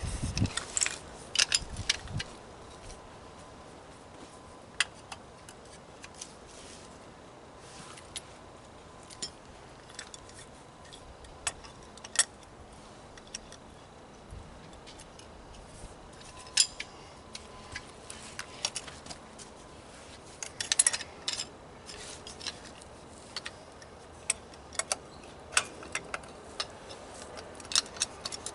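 Scattered metallic clicks and clinks of hand tools working on the parts of an air compressor being dismantled, irregular and spaced out, with a quick cluster of them about three-quarters of the way through.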